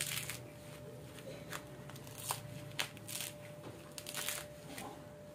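Coconut husk being pried and torn off with a screwdriver and by hand: a string of faint, irregular scratchy rips of coir fibre.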